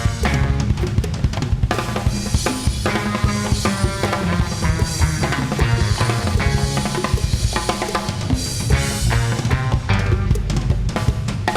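Music with a full drum kit beat: bass drum, snare and rimshots over a heavy bass line and layered pitched instruments.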